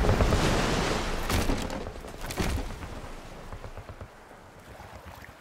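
Trailer battle sound design: a rushing rumble with a few scattered sharp shots, fading steadily away to quiet.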